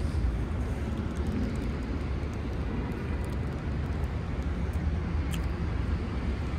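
Steady low rumble of city street traffic, an even noise with no clear events in it.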